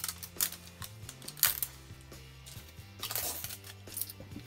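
Plastic wrapping crinkling as it is peeled off a toy capsule ball: short crackles about half a second and a second and a half in, and a longer stretch of crinkling about three seconds in. Background music with steady low notes plays underneath.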